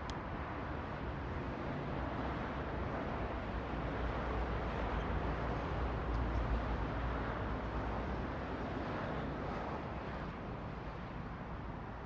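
Steady outdoor background noise: a low rumble with a hiss over it, swelling slightly in the middle. No bird calls stand out.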